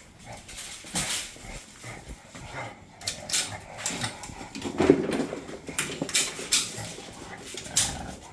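Big dogs moving about close by, with scattered scuffs and bumps and one short pitched dog sound, the loudest moment, about five seconds in.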